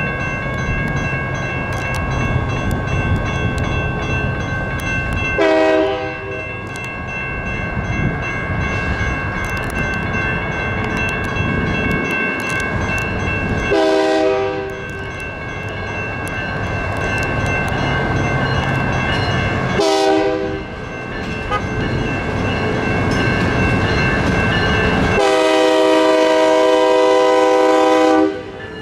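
Railroad crossing bells ringing steadily while an approaching Union Pacific freight locomotive sounds its multi-note horn four times in the grade-crossing pattern: two blasts of about a second, a shorter one, then a long blast held about three seconds as it reaches the crossing. The diesel engines' low rumble grows louder underneath.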